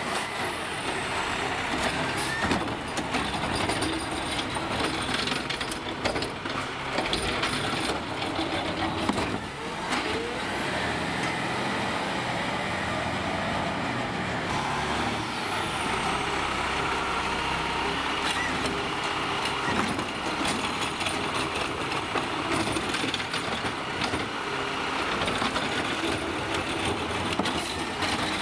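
Peterbilt McNeilus ZR automated side-loading garbage truck at work: the engine runs steadily under the truck's working noise, with a few sharp knocks and a slow high whine that rises and falls.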